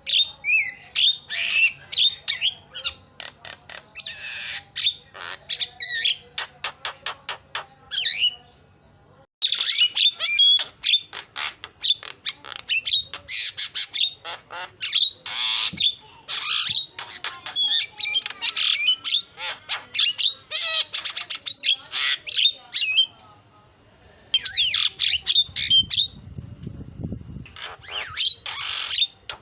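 Javan myna (jalak kebo) calling: fast runs of harsh squawks, chatter and short whistled notes, broken by brief pauses about nine seconds in and again near the three-quarter mark.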